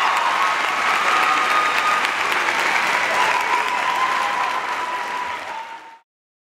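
Audience applauding and cheering, fading out and ending in silence about six seconds in.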